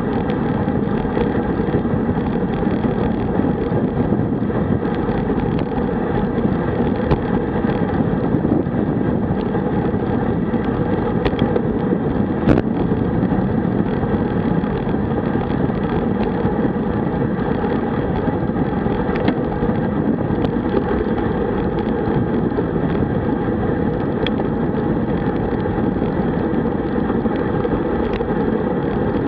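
Steady low rush of wind over the microphone of a camera on a road bike riding at about 45–50 km/h, with a few faint sharp clicks, the clearest about twelve seconds in.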